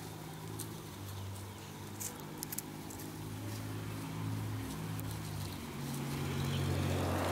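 Puppies scuffling and wrestling on grass, with a few light clicks about two seconds in, over a low steady motor hum that grows louder near the end.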